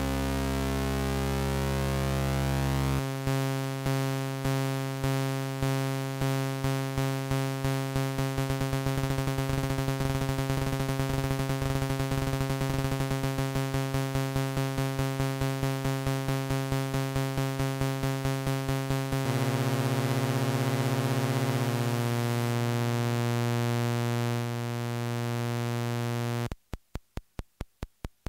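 MFOS Sound Lab Mini-Synth playing a buzzy analog synth tone, held steady at first and then chopped by its AR envelope generator into repeating notes that each fade out, coming faster and faster as the setting is turned. The tone's colour and pitch shift twice, and near the end it becomes short clicky blips, about six a second.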